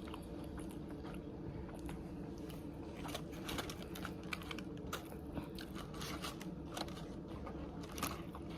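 Close-up eating sounds: chewing and crunching on fried chicken wings, with scattered short crunchy clicks over a steady low hum.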